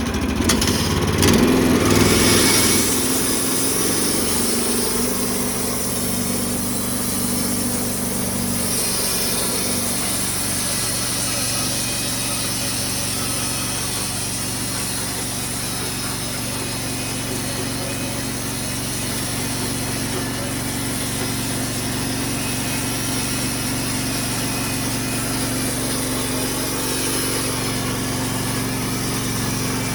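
Hudson sawmill running steadily, its engine driving the band blade through a Norway spruce log. It is a little louder in the first few seconds, then settles to an even drone with a high hiss.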